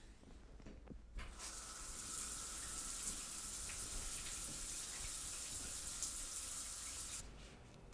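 Shower turned on about a second in, the water spraying steadily, then shut off abruptly near the end.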